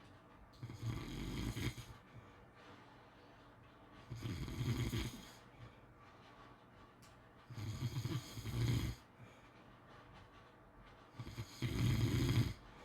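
Pit bull snoring: four long snores about three and a half seconds apart, with quiet breaths between.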